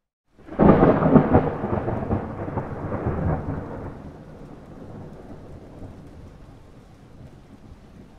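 A thunder clap: a sudden loud crack about half a second in, crackling for a few seconds, then a low rumble fading away.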